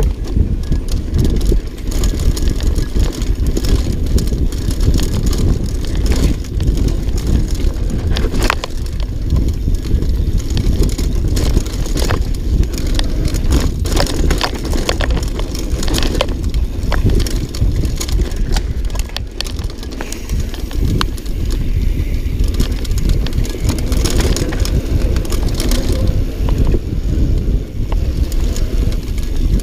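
Mountain bike ridden fast downhill on a dirt trail: a steady low rumble of tyres on the ground and air rushing past the rider's camera, with frequent sharp clicks and clatters as the bike rattles over bumps and roots.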